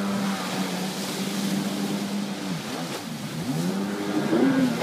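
Kawasaki stand-up jet ski engine running at steady high revs over the hiss of spray. From about halfway through, the revs dip and rise several times as the craft is spun in tight circles.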